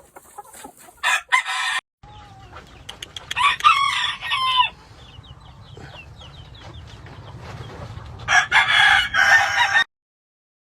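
Gamefowl roosters crowing, three loud crows in turn, with quieter clucking and calls between them. The sound cuts off abruptly near the end.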